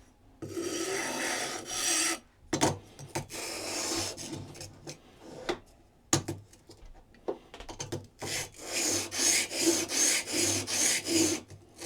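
A steel blade held in a honing guide is rubbed back and forth on a double-sided diamond sharpening plate, making a gritty scraping in separate strokes, with a run of quick strokes near the end. The diamond grit is plainly biting the steel.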